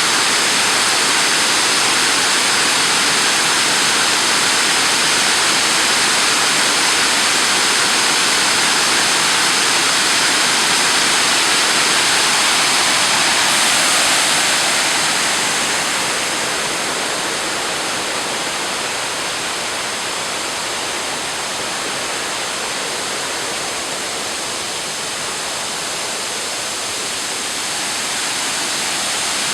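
Huai Mae Kamin Waterfall rushing in a steady, dense roar of falling water. It drops a little in loudness about halfway through and swells back near the end.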